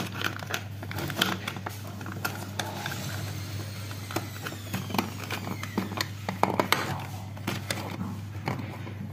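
Irregular plastic clicks and knocks as a white network I/O box faceplate is handled and pushed into its slot in a modular wall plate, over a steady low hum.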